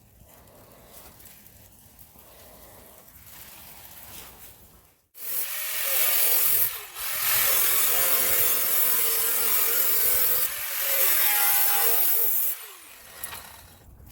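A power cutting tool cutting through the sheet metal of a rusted Chevy Caprice trunk lid. It starts about five seconds in, runs loud for about seven seconds with two brief dips, then stops.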